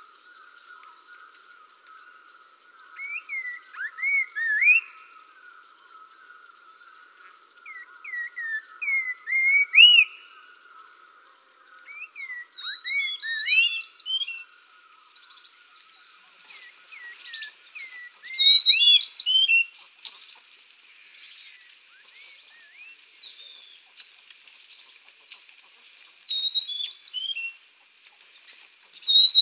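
Small songbirds chirping in short phrases of quick rising and falling whistled notes, coming every few seconds. Under them runs a steady faint background buzz, lower in the first half and higher after about the middle.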